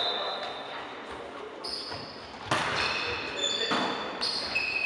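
Volleyball being played in a large sports hall: sharp hits of the ball at about two and a half and three and a half seconds in, each echoing around the hall, with short high squeaks of shoes on the court floor between them.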